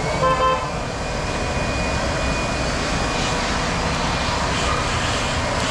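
Wood-fired turbo stove burning hard under its small electric blower: a steady rushing noise of forced-draft flame and fan. A brief high tone sounds about a quarter second in.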